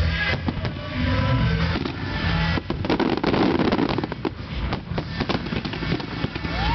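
Fireworks display: many bangs and reports from shells and comets going off in quick succession, overlapping into a continuous barrage.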